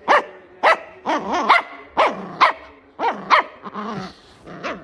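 A dog barking over and over, about ten short barks at roughly two a second.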